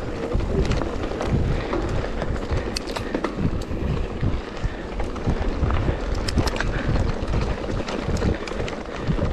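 Mountain bike riding uphill over a loose dirt and gravel track: tyres crunching on stones, with frequent short clicks and rattles from the bike, under a steady low rumble on the rider's helmet-mounted camera microphone.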